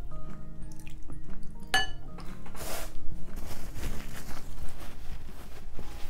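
Soft background music for about the first two seconds. After that come close-miked eating sounds: chewing and mouth noises, and a paper tissue rustling as it is wiped across the mouth.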